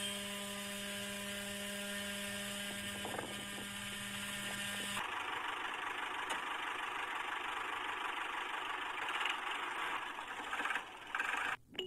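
Small electric motor of a homemade miniature chaff cutter running with a steady hum, stopping abruptly about five seconds in. A steady rushing noise without a clear pitch follows, dropping out near the end.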